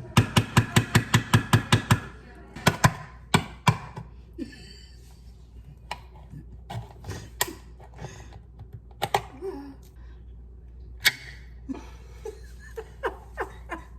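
A quick, even run of sharp knocks, about seven a second for two seconds, then scattered single clicks and thunks of things being handled.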